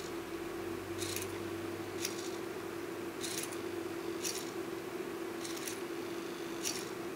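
Hobby servo motors of an Arduino hexapod robot driving its legs through a forward-and-backward walking gait: short, sharp rasping bursts about once a second over a steady hum.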